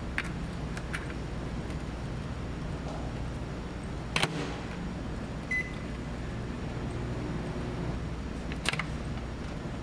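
Steady low drone of a car ferry's engines heard from inside the ship. A few sharp clicks sound over it, the loudest about four seconds in, and there is one short high beep about halfway through.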